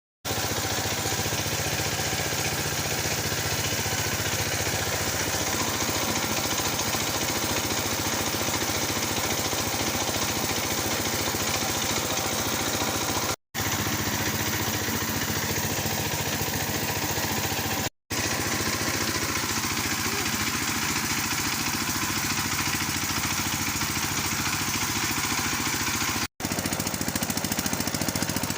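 Engine-driven machine running steadily. Its sound breaks off for a moment three times, at cuts between clips.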